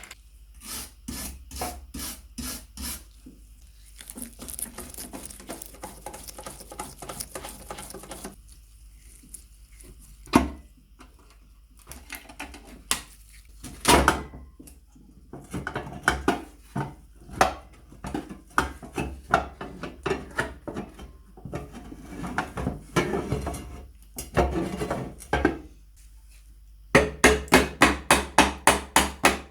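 Hand-tool work on workshop parts: clicks, scraping and rubbing, with a couple of sharp knocks. Near the end comes a quick, even run of taps, about four a second.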